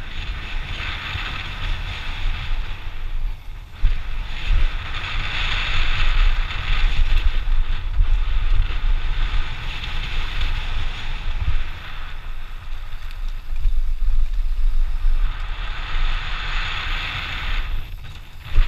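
Mountain bike descending a dirt trail: wind buffeting the microphone, with tyres rolling over dirt and the bike rattling, swelling and fading as speed changes. A sharp knock about four seconds in.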